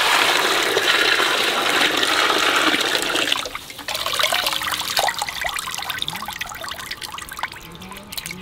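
Water poured in a steady stream into a metal bowl of chopped raw chicken, stopping abruptly about three seconds in. Then quieter wet splashes and drips as handfuls of the rinsed chicken are lifted out of the water.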